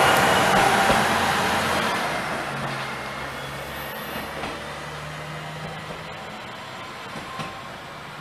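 Tenryu Hamanako Railway TH2100 diesel railcar pulling away along the track. Its engine hum and wheel noise fade steadily as it recedes.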